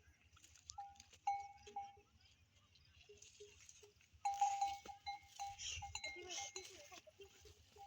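Livestock neck bells clinking irregularly as the animals walk, with short ringing notes at two pitches, one higher and one lower. A louder hissing, rustling noise joins about four seconds in.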